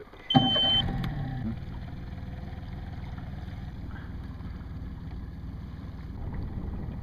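Bass boat's motor running as the boat moves off to a new fishing spot. It comes in abruptly a moment after the start, louder for about the first second, then runs steadily.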